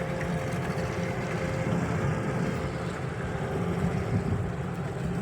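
Motorboat engine running steadily under way, with a low rumbling wind noise on the microphone.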